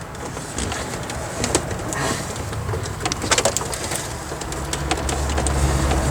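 Electrical cords and wires being handled and moved around, with scattered small clicks and knocks. A low hum swells about five seconds in.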